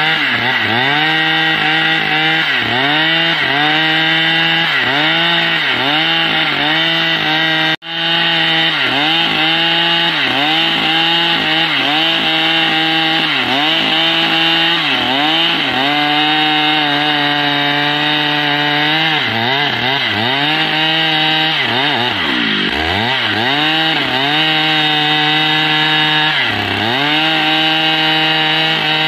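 Stihl MS 881 two-stroke chainsaw cutting mahogany at full throttle, its engine pitch dipping and recovering over and over as the chain bites into the wood, with steadier stretches in between. The sound drops out for an instant about eight seconds in.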